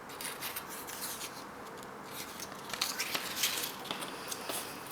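Faint, irregular small clicks and rustles, a few louder ones around the middle, with no call or spoken reply.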